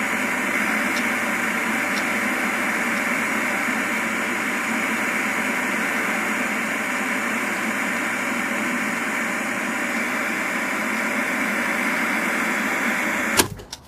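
Television set hissing with steady static from an untuned, no-signal screen. It cuts off suddenly with a click shortly before the end, as the set is switched off.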